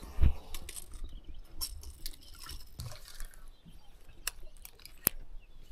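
Light splashing and dripping of water with scattered small clicks and taps, a soft thump just after the start, and two sharp clicks in the second half.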